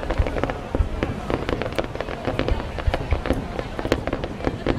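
Fireworks going off in a rapid, continuous string of sharp cracks and bangs, several a second, with deep booms underneath.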